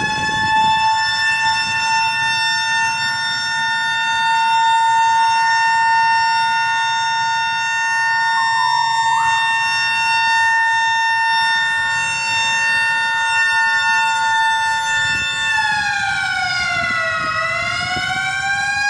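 Loud city siren sounding a long, steady wail, pitched and rich in overtones. About three-quarters of the way through its pitch sags and then climbs back. It is sounded to mark the moment of Indonesia's independence proclamation.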